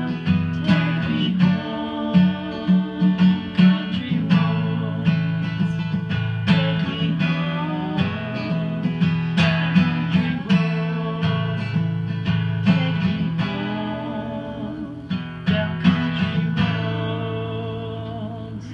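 Acoustic guitar strummed in a steady rhythm of chords, growing softer toward the end.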